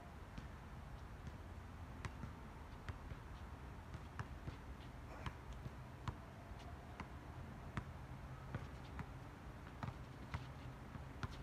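Faint, distant basketball bouncing on an outdoor court: about ten sharp, irregularly spaced bounces over a steady low rumble.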